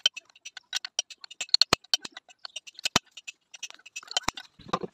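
Hammer blows on a steel punch held against a power tiller's shaft assembly, metal striking metal, during oil seal work: a quick irregular run of light taps with a few heavier strikes.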